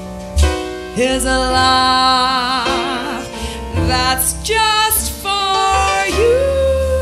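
A live band playing: a woman sings long held notes with a wide vibrato over piano, electric bass and drums.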